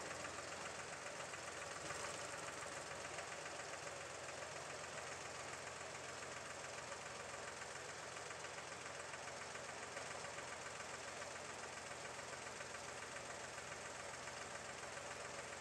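An engine idling steadily, with a fast, even beat and no change in speed.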